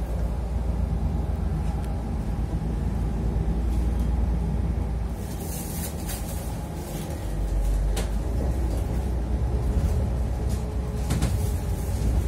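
Inside a moving city bus: a steady low rumble from the drive and road, with a few sharp clicks and rattles from the closed second door about halfway through and near the end.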